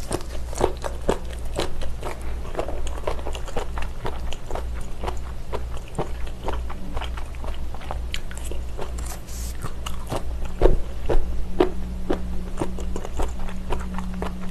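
Close-miked chewing of sea mustard sporophyll (miyeok-gwi), a bumpy, firm-chewy seaweed: a rapid, irregular run of crisp crunches and wet clicks as it is bitten and chewed.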